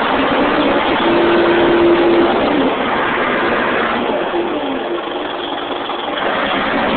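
Caterpillar D5H XL bulldozer's diesel engine running steadily, heard from the operator's seat, with a short steady whine over it about a second in.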